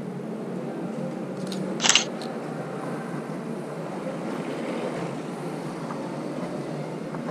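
Canon EOS Rebel T6 DSLR shutter firing once: a short, sharp click about two seconds in, over a steady background hum.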